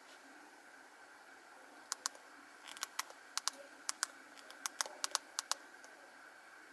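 Keys on an Alcatel 1010D feature phone's keypad being pressed: a dozen or so short, sharp clicks, many in close pairs, from about two seconds in to about five and a half seconds, as the phone's menu is worked to play a ringtone.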